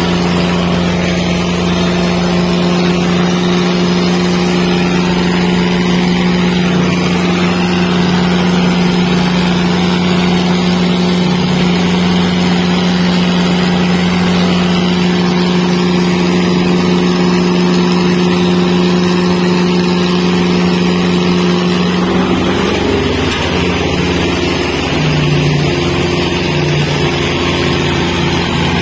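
Tractor diesel engine running steadily and loudly; about two-thirds of the way through its pitch drops and wavers, then settles again.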